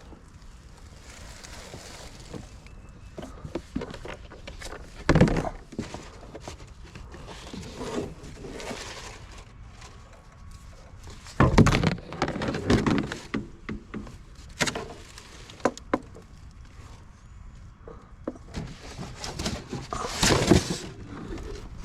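Junk being picked through and handled: irregular knocks, thumps and rustling, with the loudest knocks about five seconds in, around twelve seconds in and near the end.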